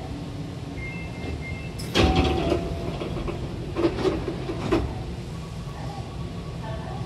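Hankyu 8000-series commuter train's double sliding doors opening at a station stop: a sudden loud rush about two seconds in as the panels slide apart, then a few sharp knocks a couple of seconds later, over the low hum of the stopped train.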